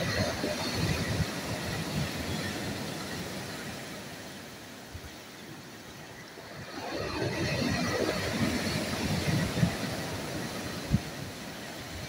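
Sea surf breaking on a pebble beach and against boulders, washing up and drawing back: one wave surges in at the start, the sound eases off around the middle, and the next breaks a little past halfway. A single sharp thump comes near the end.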